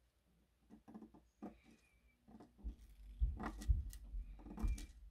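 Scissors snipping along the top edge of a model chain link fence mesh, a series of short crisp cuts about once a second, louder in the second half, with low bumps of handling against the work board.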